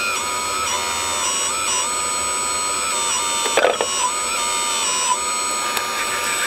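Small electric motors of a radio-controlled scale construction machine whining, the pitch holding and then stepping up or down as the controls change. A short, loud, noisy knock comes about three and a half seconds in.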